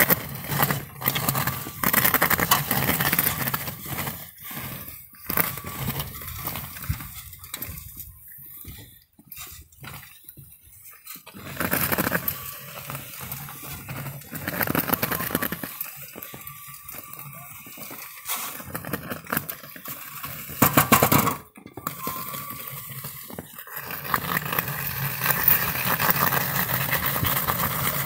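Remote-controlled plow cart at work: its blade scrapes and crunches through snow over pavement. The scraping comes in bursts with quieter pauses, loudest about three-quarters of the way through, and grows steadier near the end.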